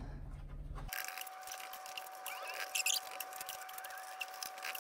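Stuck plastic engine cover of a 2008–12 Chevy Malibu being wiggled back and forth on its mounts: faint scattered clicks, creaks and small squeaks, over a faint steady high whine.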